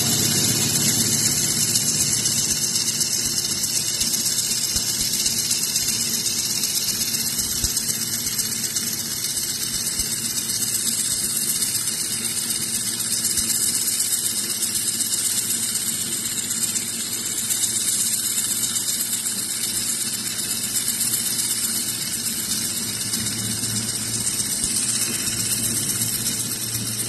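Laser welding machine running: a steady, loud hiss with a low hum underneath.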